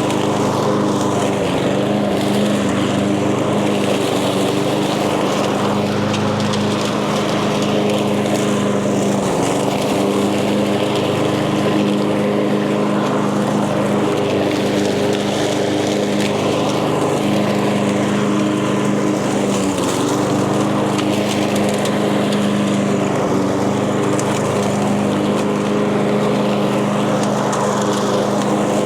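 Echo gas walk-behind lawn mower running steadily at full throttle while cutting tall, thick grass and weeds; the engine note sags briefly a couple of times under the load.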